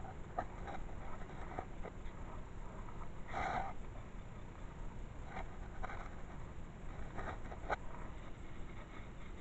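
Handling and rustling noises close to a chest-mounted camera: clothing brushing and grass rustling, with scattered small clicks and one brief louder rustle about three and a half seconds in.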